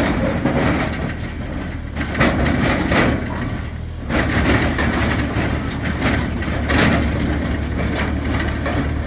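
Future FT40 4-ton mini excavator running, its engine humming steadily. Loud clanks and knocks come every second or two over the hum as the machine moves.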